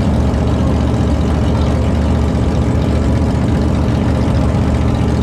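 Race-built pickup truck's engine idling loudly and steadily with a low rumble.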